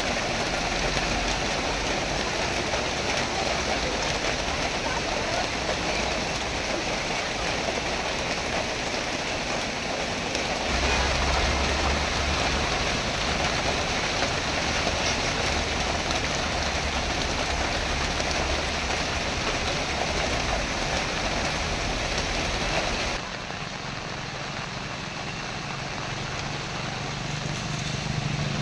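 Heavy rain pouring steadily, an even hiss of rain on the road and surroundings, with cars passing on the wet road. It turns a little quieter about two thirds of the way through. Near the end a motorcycle engine draws closer, rising in pitch.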